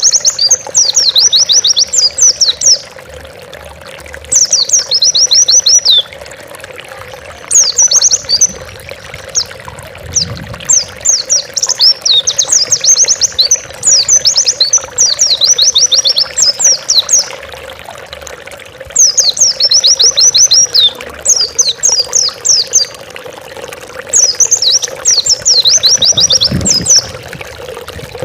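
White-eye (pleci) singing vigorously in repeated bursts of rapid, high, descending chirping notes, each phrase a second or two long with short pauses between. A faint steady hum and hiss lie underneath.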